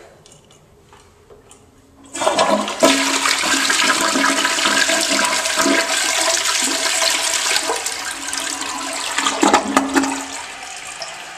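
2011 Crane Plumbing Galaxy toilet flushing: a sudden loud rush of water about two seconds in, gurgling as the bowl swirls and drains, with a few gulps near the end. It then settles to the quieter steady sound of the tank and bowl refilling.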